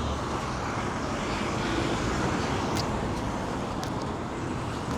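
Steady rumble of road traffic and vehicle engines, with a couple of faint clicks about three and four seconds in.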